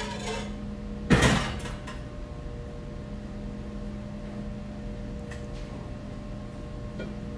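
Steady machine hum with a few constant tones, with one loud clattering noise about a second in that fades over about half a second, and a couple of faint clicks later.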